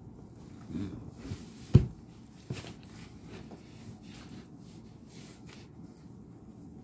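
Soft rustling and handling noise of a knit compression knee sleeve being pulled up over the knee, with one sharp thump a little under two seconds in and a smaller knock shortly after.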